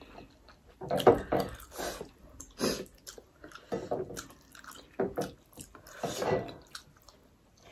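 Close-miked wet eating sounds: irregular smacks, squelches and chewing as people eat mutton momo dumplings in soup with their fingers.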